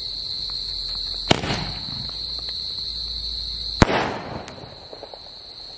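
Ben 10 firecracker going off in two sharp bangs about two and a half seconds apart, the second louder, each trailing off briefly. Crickets chirp steadily throughout.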